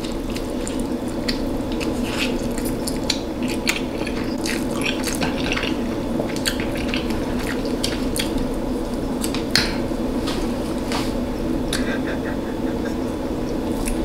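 Close-miked eating of spicy noodles: wet chewing with irregular mouth clicks and smacks, over a steady low hum.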